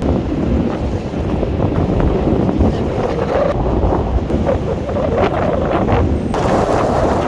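Wind buffeting the microphone over a steady low rumble, with an abrupt change in the sound about six seconds in.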